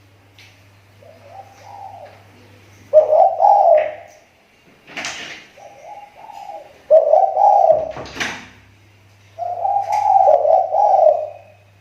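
Spotted dove (tekukur) cooing, a repeated series of low coo phrases, some faint and several loud, from a decoy bird whose call is recovering after a slump. Two short noisy rustles come between the phrases about midway, over a steady low hum.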